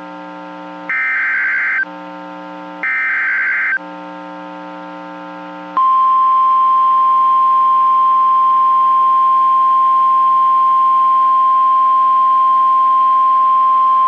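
NOAA Weather Radio Emergency Alert System (SAME) alert: two short buzzy bursts of header data, then about 6 s in the steady 1050 Hz warning alarm tone starts and holds. This tone signals that a warning, here a severe thunderstorm warning, is about to be broadcast. A steady hum sits underneath.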